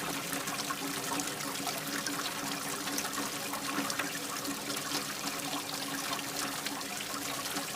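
Steady rain: an even hiss with many small drops ticking throughout.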